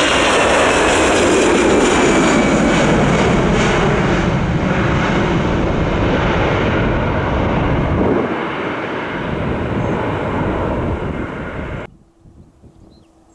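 Airliner passing close by. Its engines make a loud rushing noise, with a whine falling in pitch during the first couple of seconds. The noise fades slowly, then cuts off suddenly about a second before the end, leaving a faint steady hum.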